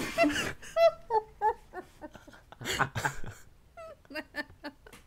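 People laughing in short, high-pitched bursts that waver up and down.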